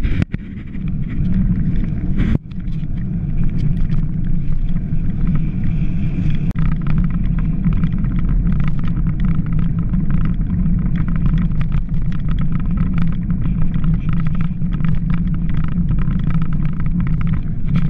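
Wind buffeting the microphone of an action camera riding on a moving bicycle in the rain: a loud, steady low rumble with scattered sharp ticks, dropping out briefly twice near the start.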